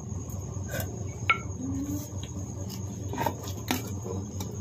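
Wooden rolling pin rolling out dough on a steel plate, with a few separate sharp clicks and knocks against the metal, the loudest about a second in. A steady hum and a thin high tone run underneath.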